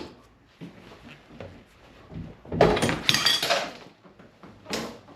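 Metal hand tools clanking and ringing against a rusted rear axle nut as it is forced loose: scattered light clicks, then a loud burst of metallic clatter about two and a half seconds in lasting about a second, and one more clank near the end.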